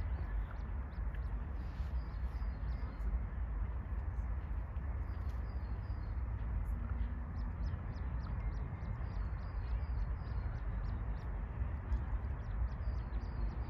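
Small birds singing, with many short chirps and trills scattered throughout, over a steady low rumble.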